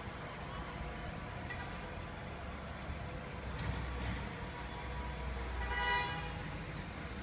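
Steady low rumble of city traffic, with a short vehicle horn toot about six seconds in. A distant muezzin's call to prayer holds faint notes in the background.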